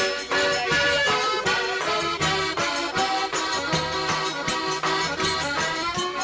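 Accordion (sanfona) playing a lively forró melody in sustained reedy chords and runs, over a steady rhythmic percussion beat with a shaker-like high rattle.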